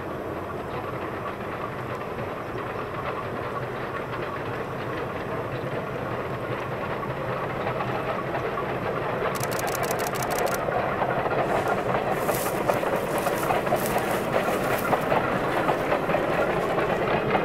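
SY-class 2-8-2 steam locomotive hauling a passenger train under steam, its running sound growing steadily louder as it approaches. In the second half the wheels click over the rail joints.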